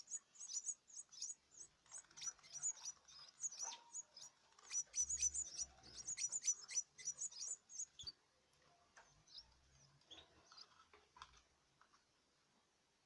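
Canary chicks giving rapid, short, high-pitched cheeps in quick succession. The cheeps stop about eight seconds in, leaving only a few faint scattered sounds.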